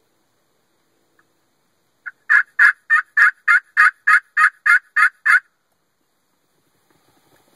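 A run of about eleven hen-turkey yelps, loud and evenly spaced at about three a second, starting about two seconds in and stopping a couple of seconds before the end.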